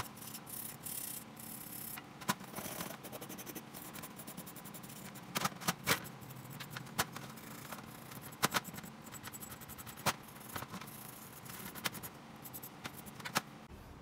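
Small brush scrubbing metal motorcycle carburetor parts by hand: a steady scratchy rasp, broken by irregular sharp clicks and knocks as the metal parts touch the stainless steel tray.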